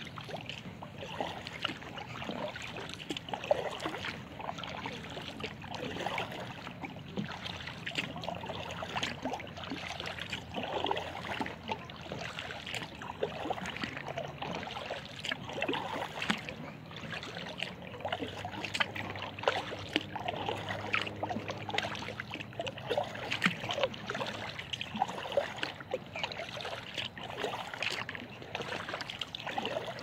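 Kayak paddling in calm water: the paddle blades dip and splash, with drips and small clicks at an irregular pace.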